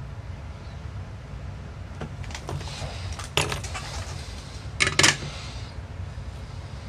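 Small metal hand tools, the tweezers and soldering iron, clinking as they are set down on the workbench: a few light clicks, then a louder quick double clatter about five seconds in, over a steady low hum.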